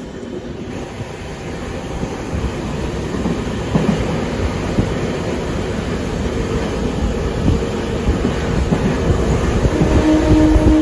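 Moving passenger train running on the track, its wheels rumbling and clattering over the rails as heard from the coach's open doorway. The noise grows louder as it goes, and a steady tone joins near the end.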